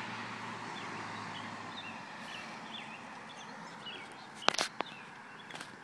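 Distant Dodge Cummins diesel pickup's engine and open-turbo noise, a steady sound slowly fading away, with faint bird chirps and a few sharp clicks about four and a half seconds in.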